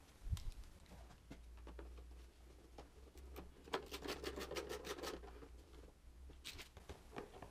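Faint clicks and rustling of gloved hands handling small plastic parts and tools, with a few sharper clicks near the end from a ratchet wrench being worked on a screw of the motocross bike's rear fender.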